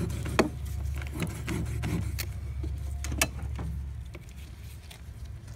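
Knife cutting and scraping as skin and meat are worked off an iguana leg on a plastic cutting board, with scattered small clicks and scrapes. A low steady hum runs underneath and fades out about four seconds in.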